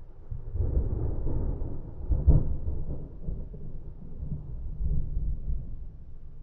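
Rolling thunder rumbling low and dull, with one louder crack about two seconds in.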